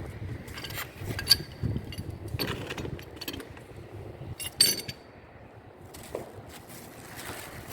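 Small pipe fittings being handled and knocked together: a scatter of clicks and clinks, the two sharpest about a second in and about four and a half seconds in.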